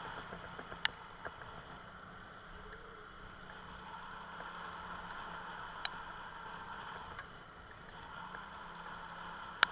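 Motor vehicle engine running steadily with a low hum, broken by three sharp clicks spread through.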